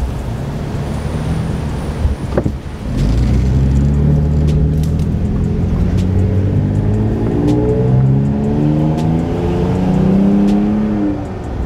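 Vehicle engine and road noise heard from inside the cabin. The engine note rises gradually as the vehicle picks up speed, with a brief knock a couple of seconds in.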